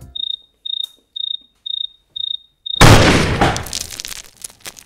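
Six short, high electronic beeps, about two a second, then a single loud gunshot about three seconds in, its echo dying away over the next two seconds.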